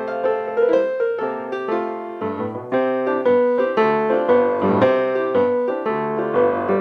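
Solo piano accompaniment playing a lively tune of quick, evenly struck notes.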